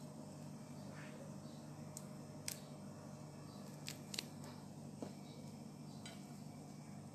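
Faint steady low hum with a few sharp little handling clicks, between about two and a half and five seconds in.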